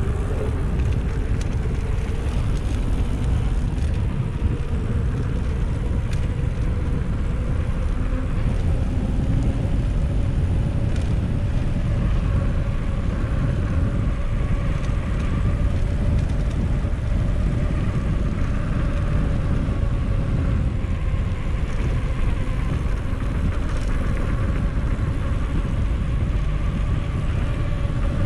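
Wind rushing over the microphone of a camera riding along on a moving mountain bike, with a steady whirr from the rolling bike.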